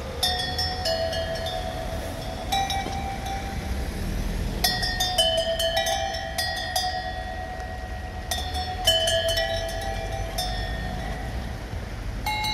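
Bright, bell-like chimes struck in quick clusters at several pitches, each note ringing on for about a second, with a similar phrase coming back about every four seconds over a low rumble.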